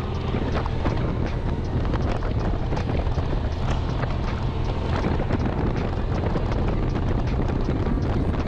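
Motorcycle engine running at a steady cruise, mixed with wind buffeting the microphone.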